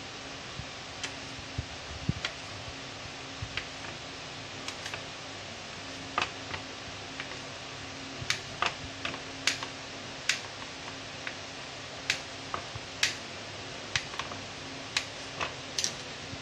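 Knife cutting through a firm, chilled cookie-dough log, the blade clicking on the plastic tray at each slice. The sharp ticks are irregular and faint at first, then louder and about one a second through the second half, over a steady low hiss and hum.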